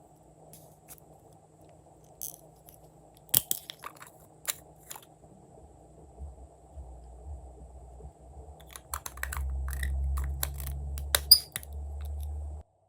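Glossy slime being squished and mixed by hand, giving sharp clicky pops and crackles in two clusters, with a low rumbling handling noise under the second half that cuts off suddenly near the end.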